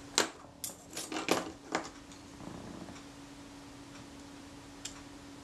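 Several sharp little clicks and taps in the first two seconds as a small screwdriver and the metal camera body are handled and the screwdriver is set down, then a faint steady hum with one more small click near the end.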